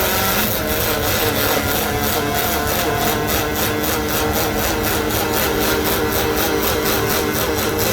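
Welding arc on aluminium, a steady loud crackle and buzz with an even pulsing several times a second.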